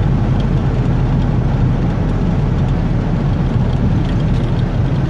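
Steady engine and road noise of a vehicle being driven, heard from inside the cab: an even low rumble with no breaks.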